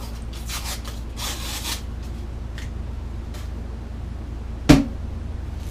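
Kitchen handling noises: a few brief rustles of packaging, then one sharp knock or pop about four and a half seconds in, over a steady low hum.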